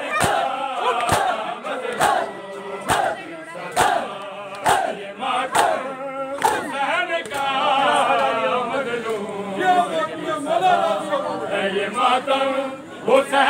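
Crowd of men chanting a noha in unison with matam chest-beating: sharp slaps of hands on chests land together about once a second for the first six seconds. The chanting then carries on without strikes until the slaps come back near the end.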